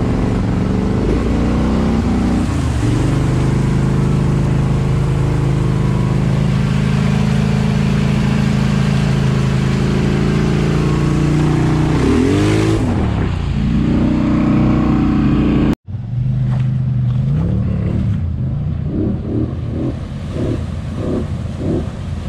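ATV engine running under load through deep water, with water splashing and two quick revs up and down. About two-thirds in, the sound cuts to another quad churning through water, its engine revving in short pulses about twice a second.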